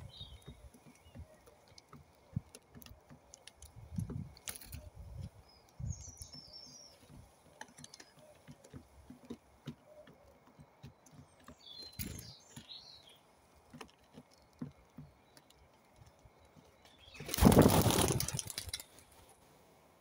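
White pigeons pecking grain off a wooden board, giving scattered soft taps and knocks, with a few short high bird chirps in between. Near the end, a loud rush of wingbeats lasting about a second and a half as the pigeons take off.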